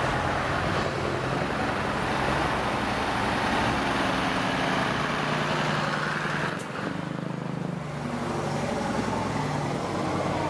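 Scania truck engine running steadily as the truck drives slowly past at close range, with a brief dip in loudness about two-thirds of the way through.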